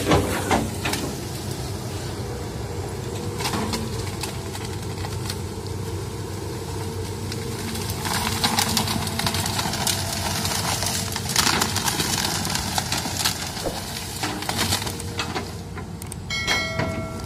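Hydraulic excavator's diesel engine running steadily while its bucket pushes through bamboo and brush, with crackling and snapping, loudest from about eight to twelve seconds in. Near the end a short chime from a subscribe-button sound effect.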